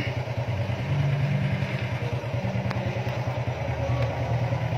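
Small engine idling steadily, with a rapid, even low throb.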